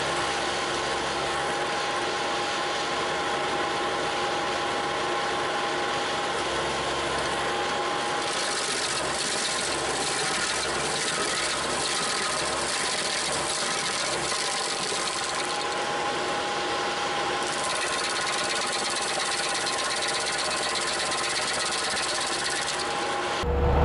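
Bobcat T300 loader running its SG60 stump grinder attachment: a steady mechanical drone with a few high whining tones held throughout.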